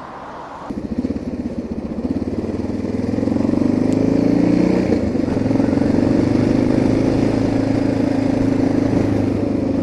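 Suzuki DR650's single-cylinder four-stroke engine pulling away: it picks up about a second in and rises in pitch as the bike accelerates, breaks off briefly about five seconds in, then runs steadily. Heard through a cheap dictaphone's microphone carried on the move.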